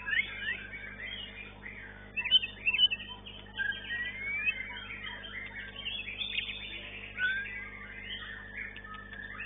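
White-rumped shama (murai batu) song: a fast, varied run of whistles, chirps and rising and falling glides, loudest about two to three seconds in.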